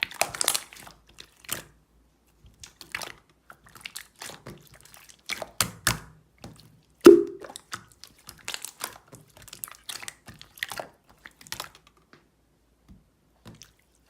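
Irregular small clicks, taps and crinkling rustles, close to the microphone, with one louder knock about seven seconds in.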